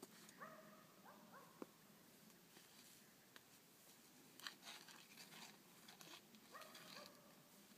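Near silence, with a few faint, short rising calls: one about half a second in, a pair just after a second, and one near the end.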